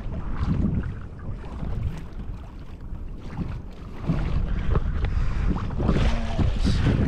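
Wind rumbling on the microphone, with water sloshing and splashing against a kayak's hull in uneven surges that grow louder in the second half.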